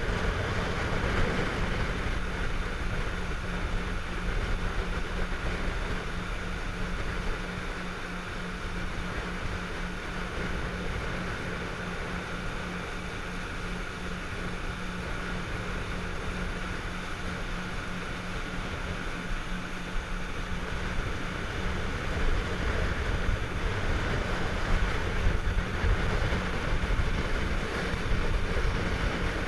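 Motorboat under way: its engine drones steadily under the rush of wind and water, a little louder near the end.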